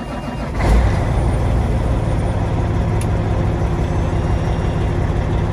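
Caterpillar C15 Acert diesel of a 2011 Peterbilt 389, heard from inside the cab, catching on its first start after sitting for a week. It surges briefly about a second in, then settles into a steady, quiet idle that is described as "whispering".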